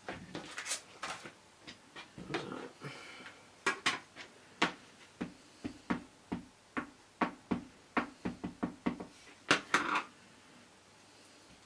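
Sharp plastic clicks and taps of a clear stamp, an acrylic stamp block and a plastic ink pad case being handled on a craft mat, with light rustling in the first few seconds.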